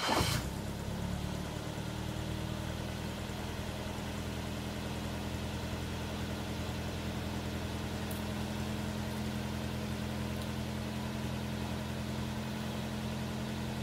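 1972 Toyota Carina's four-cylinder engine catching on a cold start right at the beginning, then idling steadily at an even pitch.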